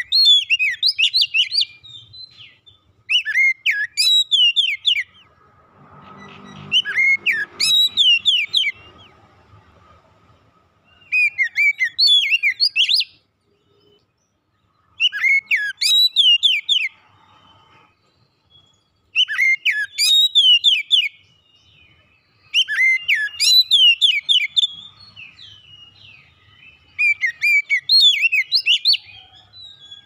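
Male oriental magpie-robin singing: repeated short phrases of fast, sweeping whistles, about one every three to four seconds with brief pauses between. A faint low rumble sits under the song a few seconds in.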